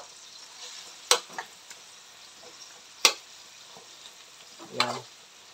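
Pork pieces sizzling in a steel wok as a metal spatula stirs them, with a steady frying hiss. The spatula clanks against the wok about a second in and again about three seconds in, and there is a longer metallic clatter near the end.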